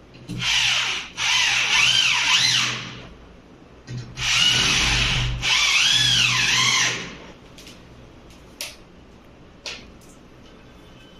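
Corded electric drill boring into a brick wall, run in two spells of about three seconds each with a brief stop in each, its motor whine rising and falling with the trigger. A few faint knocks follow.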